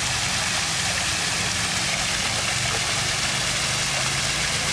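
Water stream flowing steadily: an even rushing hiss with no breaks, over a faint low steady hum.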